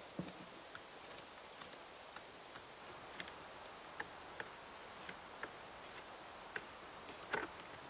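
Paper pages of a traveler's notebook turned by hand: faint, irregularly spaced soft ticks as each page flips over, over a low steady hiss.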